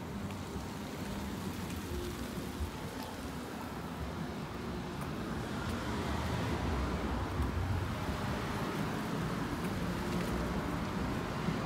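Street traffic: cars driving past and through an intersection, a steady noise of engines and tyres that grows louder about halfway through.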